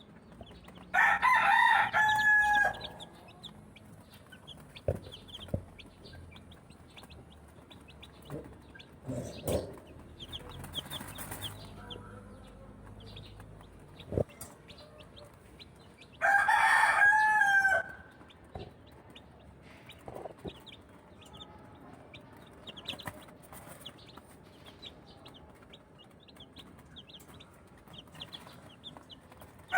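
A rooster crows twice, about fifteen seconds apart, each crow lasting under two seconds. Between the crows there is faint, continual peeping of young chicks and a few knocks.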